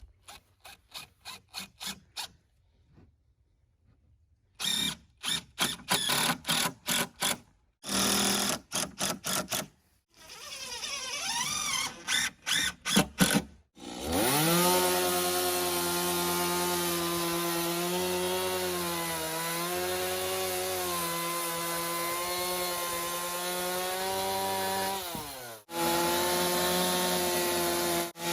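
Tool work on wood: bursts of quick, even strokes, then a power tool's motor running steadily for about eleven seconds, cutting out briefly and starting again near the end.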